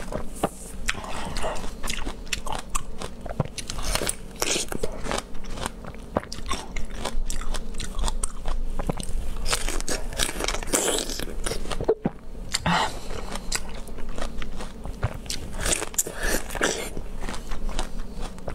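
A person biting into and chewing raw star fruit (carambola) close to a lapel microphone: repeated crisp crunches of the firm flesh and chewing, over and over.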